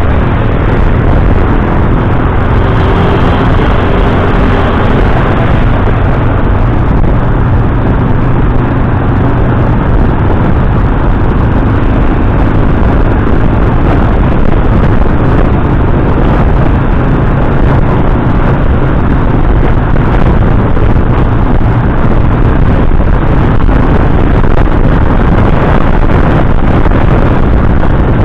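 Motorcycle engine running steadily while riding, under loud, continuous wind and road noise on a handlebar-mounted camera microphone.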